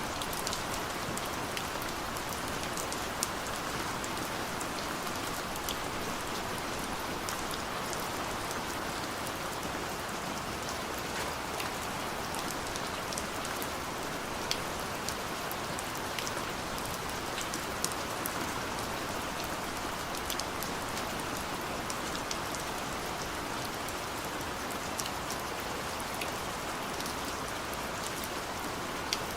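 Steady rain falling on a surface, an even hiss with many scattered drop ticks.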